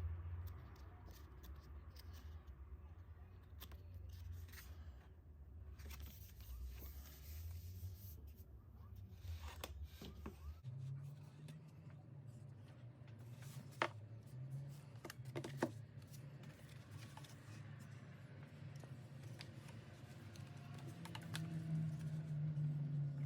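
An album package being handled and opened: scattered tearing, rustling and sharp clicks, with two louder clicks about two-thirds of the way through, over a steady low hum that shifts up in pitch near the middle.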